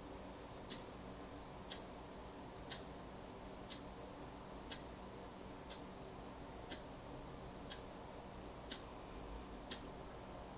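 Faint, regular ticking, one tick about every second, over a faint low hum.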